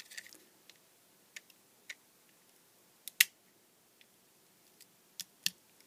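A craft knife blade picking at a silicone-potted LED circuit board, giving a handful of small, sharp clicks and taps spread out, the loudest about three seconds in.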